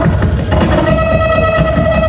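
Live harsh noise played on electronics: a loud, dense wall of distorted noise with a heavy low rumble and a steady high drone over it that drops out briefly and comes back about half a second in.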